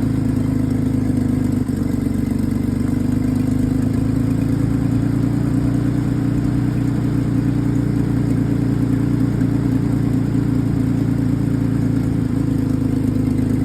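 Nissan GQ Patrol engine idling steadily, with the owner reporting a blown exhaust gasket on it.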